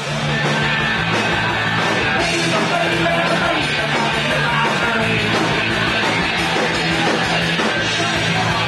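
Live rock band playing loudly: electric guitars, bass and drums in a steady full-band song.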